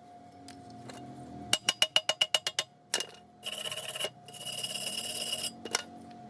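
Hand work on metal: a quick run of about ten sharp taps, then two scraping strokes, the second about a second long, with a few more taps near the end.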